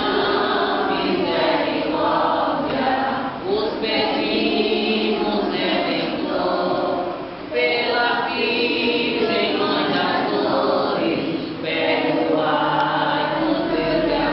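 A group of voices singing together without instruments, a hymn in phrases broken by short pauses for breath, about every three to four seconds.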